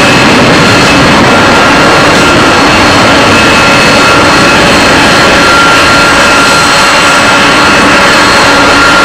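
Airbus A321 jet engines running at taxi power: a steady, loud rush of engine noise with a few constant high whining tones.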